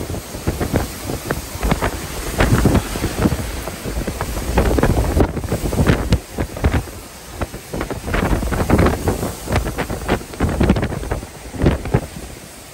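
Category 4 hurricane-force wind in the back eyewall, blasting the microphone in irregular gusts that rise and fall, with violent wind-driven rain.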